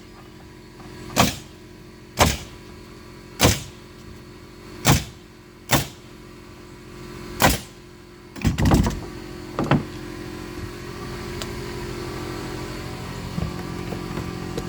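Nail gun firing nails into wall sheathing: single sharp shots roughly a second apart, then a quick cluster of shots about eight seconds in. After that a steady mechanical hum starts and grows louder.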